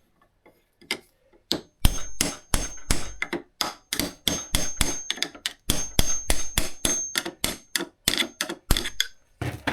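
Hammer tapping repeatedly on a right-angled metal tool to drive a knife's handle off the tang: quick sharp metal taps, about three to four a second after a short pause near the start, with a faint high metallic ring.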